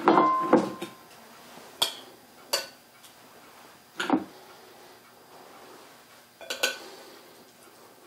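Dishes and serving utensils clinking and knocking while food is plated: a loud clatter with a brief ringing tone at the start, then four more short, sharp clinks spread over the next several seconds.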